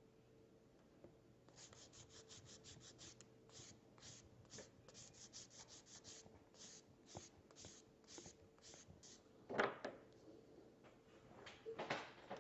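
Faint quick back-and-forth rasping of a hand abrasive stick sanding the nose-bridge area of an acetate spectacle frame, shaping the nose pads. The strokes come in quick runs, then more spaced, with one louder scrape near the end.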